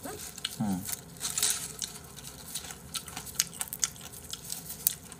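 Crisp skin and meat of a whole roast chicken crackling and squishing as gloved hands pull it apart, a quick irregular run of small crackles.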